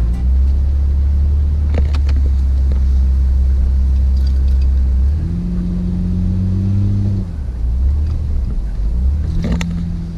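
Truck engine pulling slowly over a rough, rocky dirt road: a steady low drone that rises to a higher note about halfway through and again briefly near the end, with a couple of sharp knocks from the rough ground.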